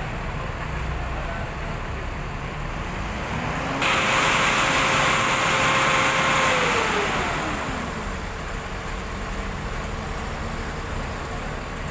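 Diesel engine of a large intercity coach revving as the bus manoeuvres. Over a steady low rumble, the engine note climbs about three seconds in, and a loud rushing noise comes in suddenly about a second later. The note holds, then falls away around seven seconds in.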